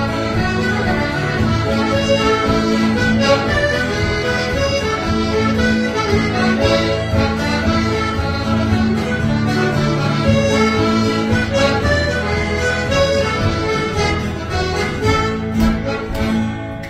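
Accordion music, a traditional-style tune with held chords over a repeating bass, fading out near the end.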